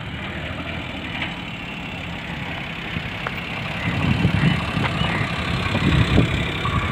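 A Maruti 800's small three-cylinder petrol engine runs at low revs as the car drives up close, getting louder from about halfway through.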